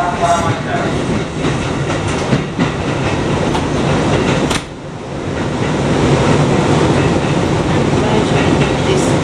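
Running noise heard from inside a moving Kotoden commuter train car: the steady rumble and rattle of wheels on the track. About halfway through it briefly drops in loudness, then builds back up.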